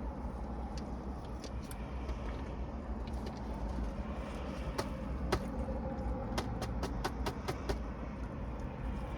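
Steady low rumble inside a car, with a few sharp clicks and then a quick run of about eight light ticks around the middle.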